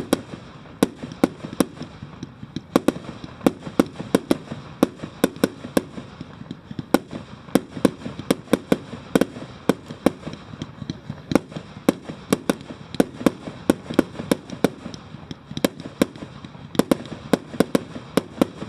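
Fireworks display going off: a rapid, irregular string of sharp bangs and cracks, several a second.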